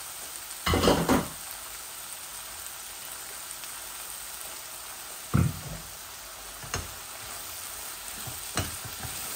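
Chicken and vegetable stir-fry sizzling steadily in a wok, with a wooden spatula knocking against the pan a few times: a short cluster about a second in, then single knocks about halfway and near the end as stirring begins.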